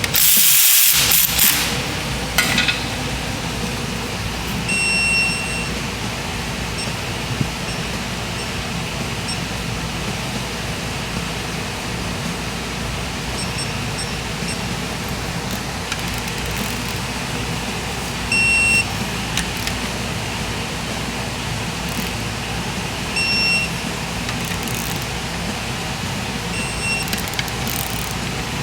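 Steady machine noise with a loud rush in the first second or so, and a few short, high-pitched beeps at irregular intervals.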